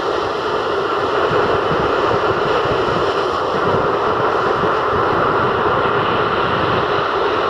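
Rough sea surf breaking continuously on a sandy beach: a steady, unbroken rush of waves with a flickering low rumble underneath.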